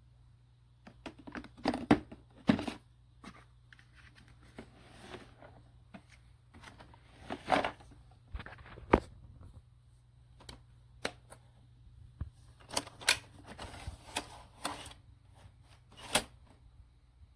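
Irregular clicks, knocks and rustling, the sound of objects being handled, over a steady low hum.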